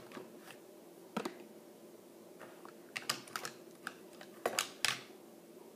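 Light irregular clicks and taps of a small die-cast toy car being set down and fingered on a hard plastic bin lid, with a quick cluster about three seconds in and the loudest pair of taps near the end.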